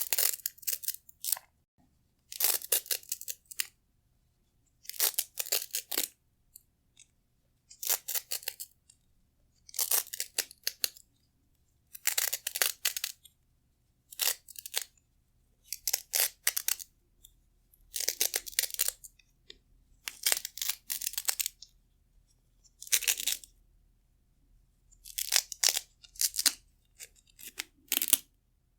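Velcro hook-and-loop straps being peeled apart, giving a crunchy, crackling rip about every two seconds, each lasting about a second.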